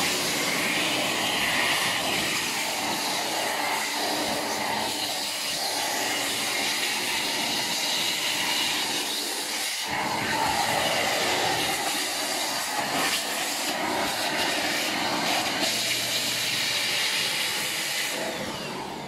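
Deerma DX115C handheld corded vacuum cleaner running steadily with its narrow crevice nozzle, sucking air along a floor corner, with a brief dip about halfway. It winds down and stops near the end.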